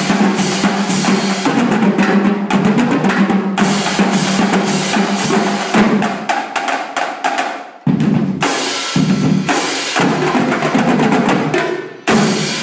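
Marching drumline of snare drums, tenor drums, bass drums and crash cymbals playing a cadence with dense, rapid stick patterns. After a brief break in the last few seconds come a few big accented hits, and the final hit rings out and fades.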